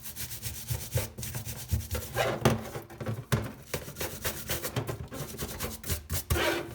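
Rapid, irregular back-and-forth scrubbing strokes on a grimy SRAM V-brake as it is cleaned with kitchen cleaner.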